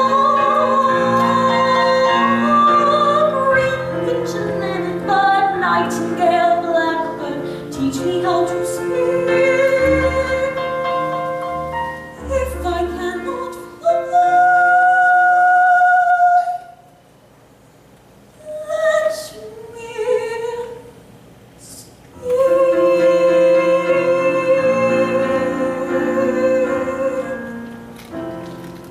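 Female voice singing a musical-theatre ballad in an operatic style with piano accompaniment, through the song's closing phrases. About two-thirds through there is a short, quieter gap with a few brief notes, then a long held final note that fades away near the end.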